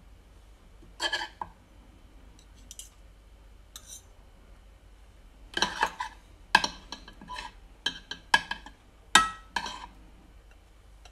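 Metal cutlery clinking and knocking against dishes: a short clatter about a second in, a few faint ticks, then a quick run of clinks in the second half.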